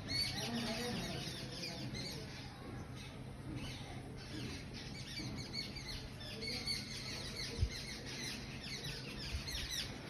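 Many small birds chirping at once in a dense, continuous morning chorus of quick high chirps. A brief low thump about seven and a half seconds in stands out above it.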